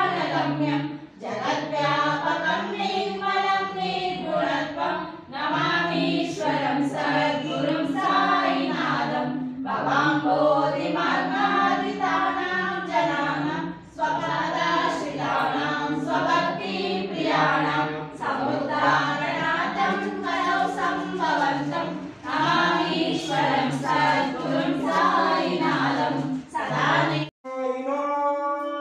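Voices singing a devotional song together without instruments, in phrases of about four seconds, with the singing breaking off near the end.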